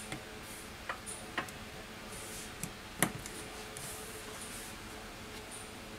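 A few light, sharp clicks as an iPhone 6s Plus display's flex cables are pressed onto the logic board connectors and the parts are handled, the sharpest about three seconds in, over a faint steady hum.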